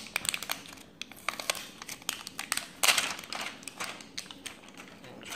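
Plastic packaging being pulled and peeled off a small metal first aid tin: irregular crinkling with scattered clicks and taps, loudest about three seconds in.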